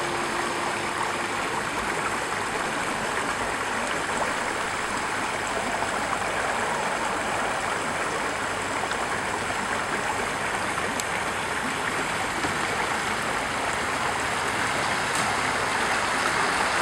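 Shallow creek water rushing steadily over rocks and small ledges, growing a little louder near the end.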